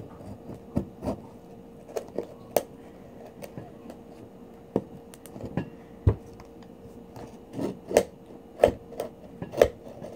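A serrated knife blade clicking and scraping against a large pearl oyster shell as it is worked into the shell's edge to pry it open. The clicks are irregular and come more often in the last few seconds.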